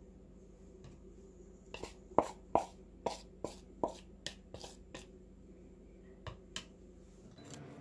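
Knife chopping on a cutting board: about ten sharp knocks at a steady pace over some three seconds, then two more a little later.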